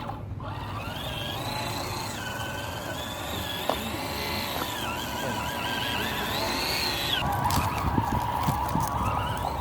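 Electric motor and gearbox of an MN86KS scale RC crawler whining as it is driven, the pitch rising, holding and falling with the throttle over several seconds. There is a single sharp click about four seconds in.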